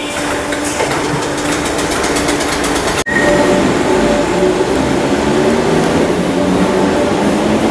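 Merseyrail third-rail electric multiple unit in an underground station: a steady electrical hum from a train standing at the platform, then, after an abrupt cut about three seconds in, another unit pulling away with its traction motors whining and stepping up in pitch as it accelerates over a rumble of wheels on rail.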